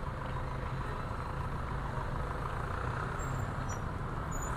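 Steady traffic noise on a crowded street: cars and motorcycles running slowly, with a low engine rumble.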